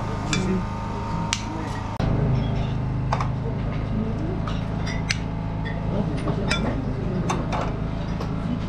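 Scattered sharp clinks of a metal spoon and pots against china dishes and teapots, over a steady low hum and background voices.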